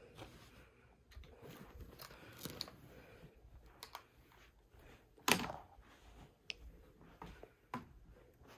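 Faint scattered rustling and small clicks, with one louder short knock about five seconds in.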